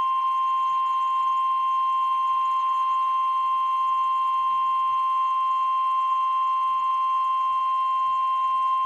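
NOAA Weather Radio warning alarm tone, the 1050 Hz attention signal. It is one steady high beep held for about nine seconds and then cut off abruptly. It announces that a weather warning broadcast follows.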